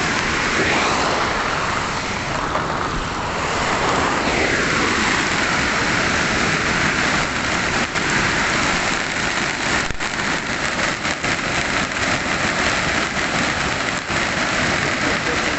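Heavy downpour with rushing runoff water, a loud, steady noise. A vehicle passes about four to six seconds in, its sound falling in pitch as it goes by.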